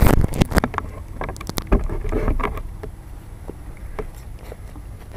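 Knocks, clicks and rustling of a model plane's onboard camera being handled and carried, over a low rumble of wind on the microphone. The clatter is dense for the first couple of seconds, then thins to single knocks about twice a second.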